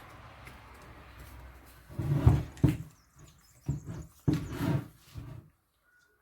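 Parts of an old washing-machine motor being worked on by hand: a faint steady rustle, then a series of loud knocks and clatters about two seconds in.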